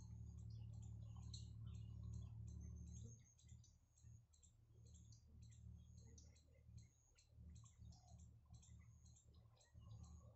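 Faint open-air ambience: short, high-pitched ticking chirps repeat a couple of times a second over a low hum that drops away about three seconds in.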